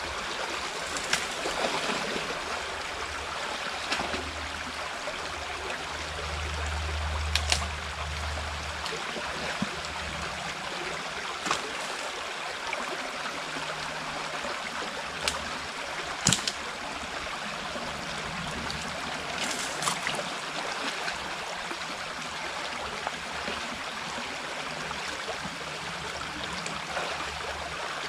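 Water flowing steadily through a beaver dam, with a few short, sharp clicks now and then.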